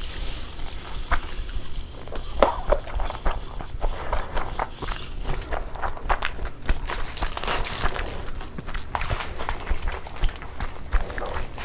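Close-miked eating sounds of a frankie (Indian wrap roll) being bitten and chewed: irregular small clicks and short rustling bursts.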